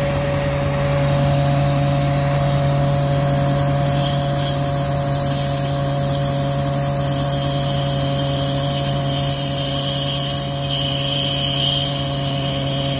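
Ford F-450's V8 diesel engine running steadily with its belt-driven hydraulic pump working under load as the flow tester's valve raises the system pressure toward 1000 psi: a constant mechanical hum and whine, with a high hiss coming up a few seconds in.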